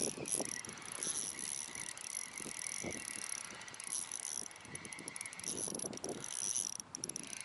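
Spinning reel being cranked to retrieve a hooked fish, its gears whirring with rapid fine ticking that comes in runs about halfway through and again near the end.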